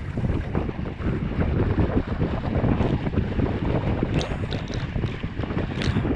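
Wind buffeting the microphone and water rushing along the hull of a Weta trimaran sailing fast, with short hisses of spray about four and six seconds in.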